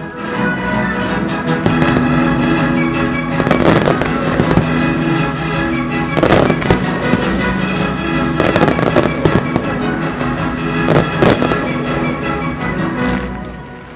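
Aerial firework shells bursting in four quick clusters over a loud orchestral-style musical soundtrack, with the bursts fading away near the end.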